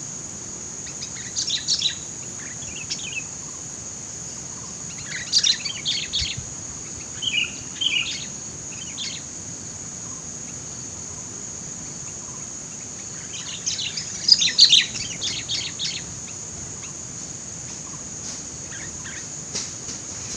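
Sooty-headed bulbuls (kutilang) giving short bursts of bubbling, chattering calls, a cluster of them about two-thirds of the way through. A steady high insect drone runs underneath.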